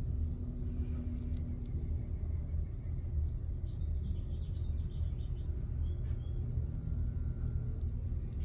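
Steady low background rumble, with a few faint high chirps about three to five seconds in.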